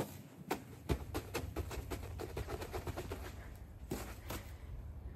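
Boots stomping on a thin layer of snow over grass: a quick, irregular run of sharp taps, several a second, thinning out after about four seconds.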